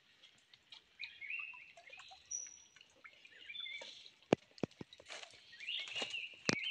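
Small birds chirping in short calls, with a few sharp snaps and cracks in the second half from boots stepping on dry branches and fallen logs.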